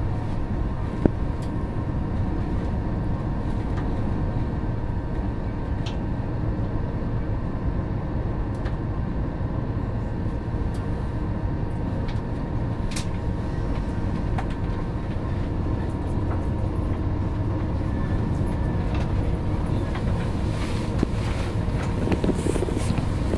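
Cabin running noise of an Alstom Coradia Nordic (X61) electric commuter train cruising at a steady speed: an even rumble of wheels on rail with a constant pitched hum from the traction motors, and a few faint clicks.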